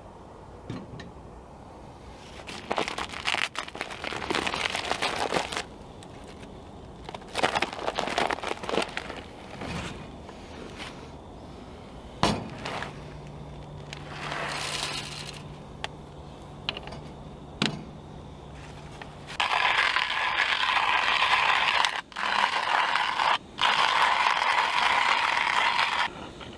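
Clinks and rustling of coffee-making gear and a coffee bag, then coffee beans rattling into a stainless steel manual coffee grinder. In the last seven seconds the hand grinder crunches through the beans in a steady grind with two brief breaks, stopping just before the end.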